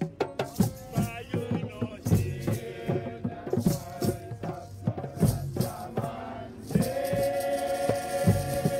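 Acoustic music: a nylon-string acoustic guitar played over steady hand percussion, with held notes coming in near the end.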